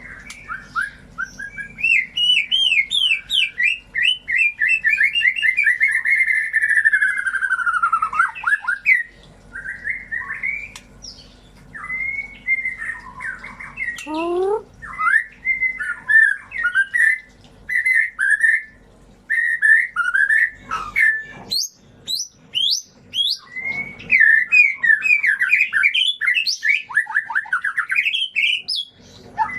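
White-rumped shama (murai batu) song: a long run of rapid, varied whistled phrases and rattling trills with short breaks between them. This is the kind of lure recording played to get a silent or off-form shama to start singing.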